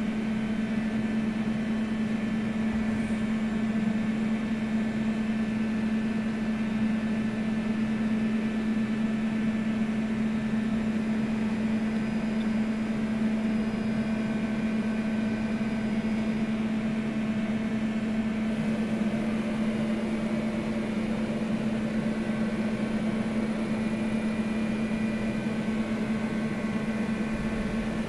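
Zayer KP 5000 CNC portal milling machine running under power: a steady mechanical hum with a strong low drone and fainter whining tones above it, some of which shift about two-thirds of the way through.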